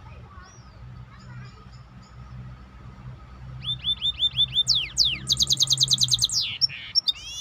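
A songbird singing: soft scattered chirps at first, then about halfway in a loud phrase of short repeated notes and quick downward sweeps, running into a fast trill of about a dozen notes a second.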